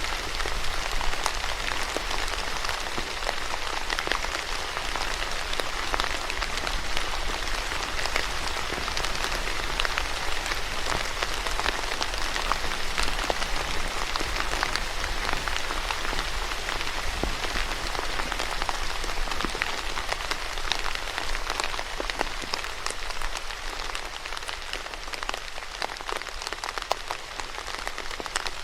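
Steady rain falling on a hard surface, a dense patter of many individual drops over an even hiss.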